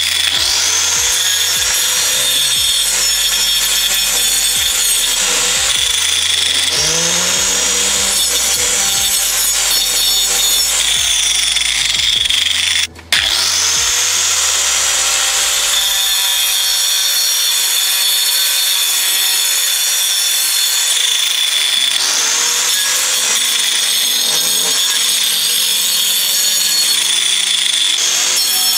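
Angle grinder with a thin cutting disc running and cutting into a block of ice: a steady high whine whose pitch dips and recovers several times as the disc bites into the ice under load. The sound breaks off briefly about halfway.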